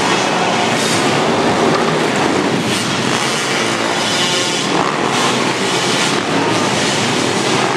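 Several pit bikes racing on a dirt track, their small engines revving and buzzing together as a loud, steady racket.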